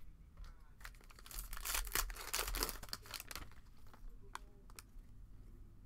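The foil wrapper of a Panini Mosaic basketball card pack is torn open and crinkled by hand, a dense crackle lasting about two seconds. A couple of light clicks follow as the cards are handled.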